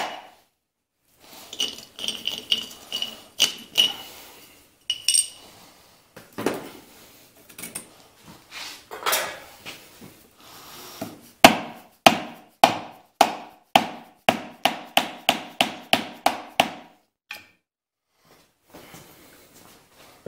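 Rubber mallet striking the hub of a small Clinton engine's flywheel while a screwdriver pries behind it, trying to break the flywheel off its shaft. Scattered blows with a short metallic ring at first, then about a dozen quick blows, two or three a second, stopping a few seconds before the end, with the flywheel still stuck in place.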